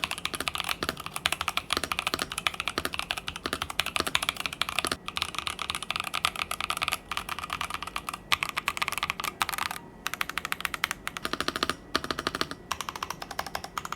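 Typing on a Press Play Essential 75 mechanical keyboard, with linear switches under thick PBT double-shot Cherry-profile keycaps: a fast, continuous clatter of keystrokes broken by a few short pauses.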